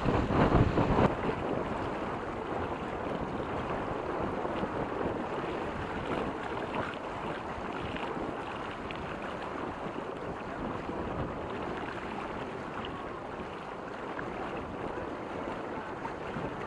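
Water rushing along the hull of a Reynolds 21 sailing catamaran under way. Wind buffets the microphone hard for about the first second, then a steady wash of water and wind follows.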